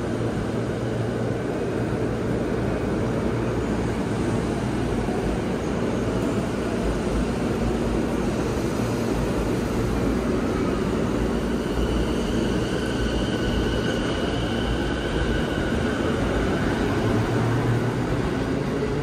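E233-series electric commuter train pulling out of the station: a steady rumble of wheels on rail as the cars roll past, with a rising motor whine in the second half as it picks up speed.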